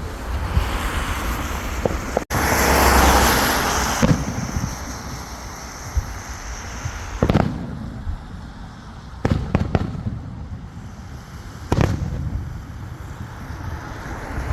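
Fireworks going off: a loud hissing, crackling swell about two seconds in, then several sharp bangs spaced a second or two apart.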